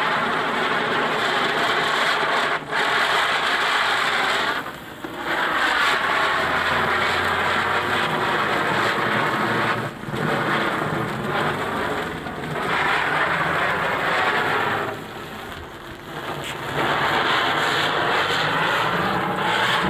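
Cock Brand ground spinner (chakri) firecracker spinning on the floor, giving off a loud, steady hiss. The hiss sags and drops away briefly several times, then comes back, and it cuts off abruptly at the very end as the spinner burns out.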